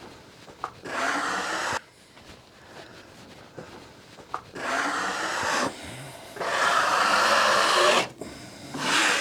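A hand scraper dragged in four rough strokes of about a second each along a freshly sawn hickory board, cleaning up its surface.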